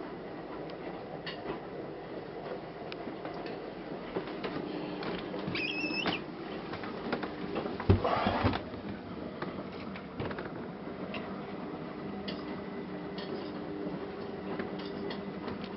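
Fridge-freezer door being handled: a short squeak about six seconds in and a sharp knock about eight seconds in, with small clicks over a low steady hum.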